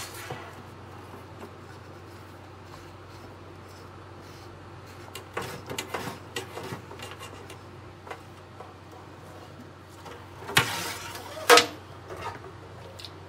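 Small clicks and rubbing of hands working a new hose onto the threaded end of a Kohler pullout kitchen sprayer head while it is hand-tightened. Two louder scraping rustles come near the end.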